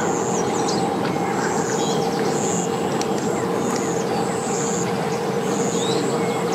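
An engine running steadily with a constant drone, with birds chirping over it.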